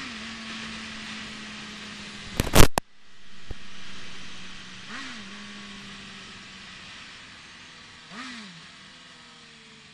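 Suzuki GSX-R750 SRAD's inline-four engine running at highway speed under wind and road noise, heard from the rider's helmet. About two and a half seconds in, a very loud sudden burst of noise cuts through for under half a second. After it the engine is quieter, with short rise-and-fall blips in its pitch twice before it settles lower as the bike eases off.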